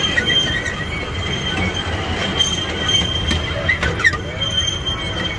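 Ride-on miniature train running along its track, heard from aboard: a steady rumble of wheels on rail under a high, steady wheel squeal, with a short sliding squeal about four seconds in.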